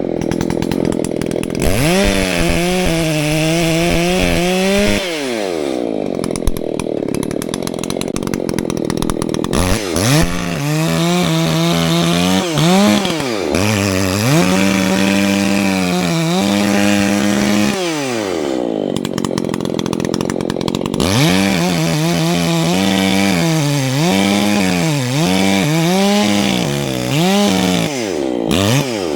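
Echo CS-620PW two-stroke chainsaw cutting into the trunk of a large dead tree for the felling cuts. It runs at full throttle in long stretches and drops back to idle about four times; the engine pitch wobbles and sags where the chain bites into the wood.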